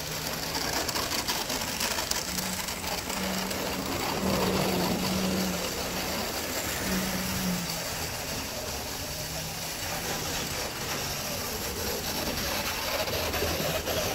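Vintage Bachmann HO-scale PCC trolley models running on the track: a small electric motor hums, its pitch rising and falling as the speed changes, over the rattle of gears and wheels on the rails.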